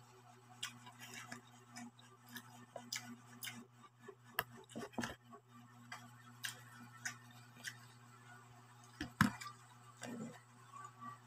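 Close-up eating sounds from someone eating rice by hand: short wet clicks of chewing and lip smacks at irregular intervals, the loudest about nine seconds in, over a steady low electrical hum.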